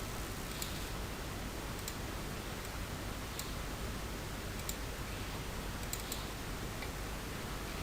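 Computer mouse clicking about five times, a second or so apart, over a steady microphone hiss.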